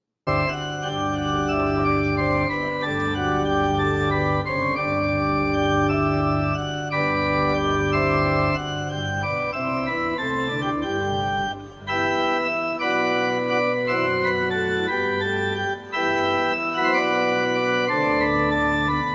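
Organ music playing slow, sustained chords that change step by step, starting abruptly just after the beginning, with two short breaks in the middle and later on.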